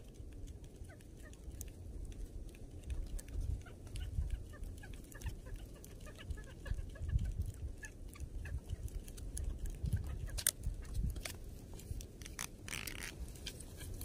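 Gusting wind buffeting the microphone, with cloth rubbing over it and scattered small clicks and taps from handling the fishing line.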